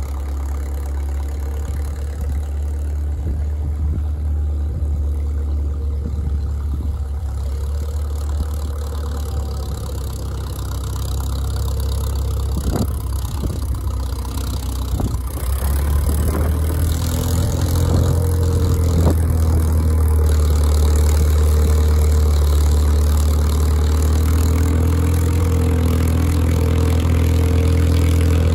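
Gusting wind on the microphone with the straight-piped engine of an International Harvester TD-6 crawler running. The engine grows louder and clearer over the second half as the crawler comes closer. A few sharp clanks sound near the middle.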